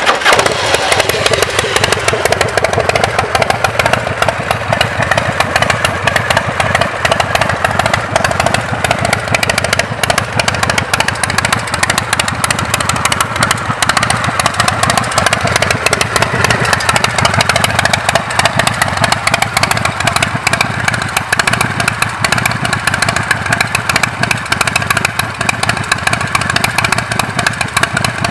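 V-twin engine of a 2004 Redneck custom chopper running loudly just after starting. The revs drop over the first couple of seconds, then it holds a steady, rapid lumpy idle.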